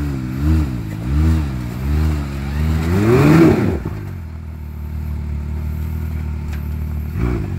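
Side-by-side UTV engine under load on a rock-ledge climb, revs rising and falling about once a second as the throttle is worked. About three seconds in it revs up sharply, then drops back to a steadier, lower run as the front wheels lift over the ledge, and picks up again near the end.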